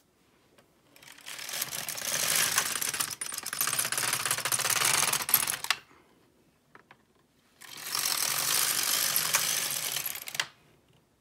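Carriage of an LK150 mid-gauge knitting machine pushed across the needle bed twice, knitting two plain rows. Each pass is a continuous rattle of the needles running through the carriage, the first about five seconds long and the second about three, with a short pause between.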